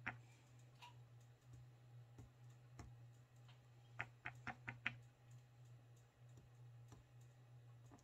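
Near silence over a steady low hum, with faint light taps and clicks from small craft items being handled on a tabletop: one at the start and a quick run of about five a little past the middle.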